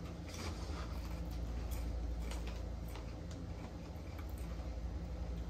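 Tortilla chips being crunched and chewed: irregular crisp clicks a few tenths of a second apart, over a steady low hum.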